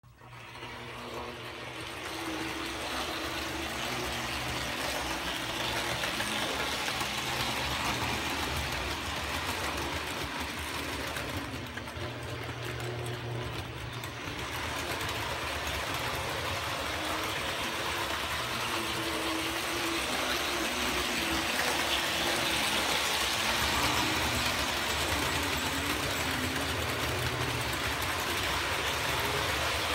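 Electric American Flyer S gauge toy trains running on layout track: a steady mechanical whir from the motors with the rumble of wheels on the rails, gradually getting louder.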